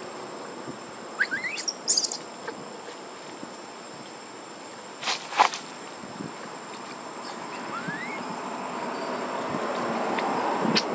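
Insects buzzing steadily in a thin high drone, with a few short high squeaks over it, the loudest about two seconds in and a sharp burst about five seconds in.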